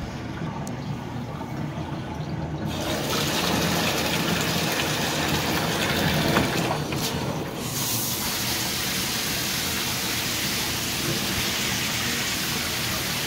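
Running water, a steady rush that starts about three seconds in and carries on without a break.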